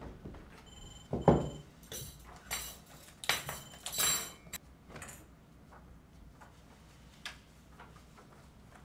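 A thump about a second in, then a few seconds of clattering and clinking as objects are set down and handled on an office desk; the sound dies down to a few faint ticks.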